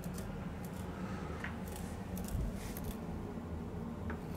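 Faint clicks and rubs of a hand turning a milling machine's spindle to sweep a dial test indicator around a chuck body, over a steady low hum.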